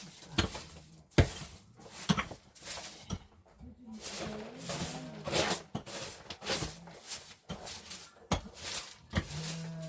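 A run of sharp knocks and scrapes, with livestock bleating now and then and one longer bleat near the end.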